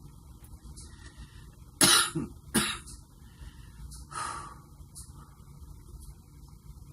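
A woman coughing hard twice, about two seconds in, with a weaker sound a couple of seconds later. It is a smoker's cough, the dry cough she says these cigarettes give her.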